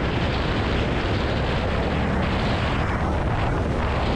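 Wind rushing hard over a helmet-mounted microphone at road speed on a 2022 Indian Chief motorcycle, with the low rumble of its Thunderstroke 116 V-twin engine underneath.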